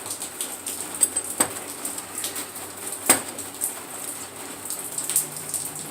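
Scattered light metallic clicks and taps of a punch and hammer being handled and set against the door hinge, the sharpest tap about three seconds in.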